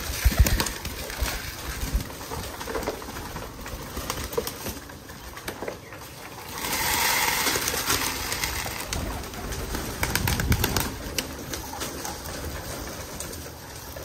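Domestic pigeons cooing in their loft, with scattered clicks and shuffling. About six and a half seconds in comes a rush of grain feed being poured out for them, lasting about a second and a half.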